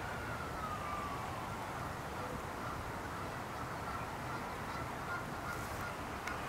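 Faint calls of waterfowl on the water, one sliding down in pitch near the start, over a steady low background rumble.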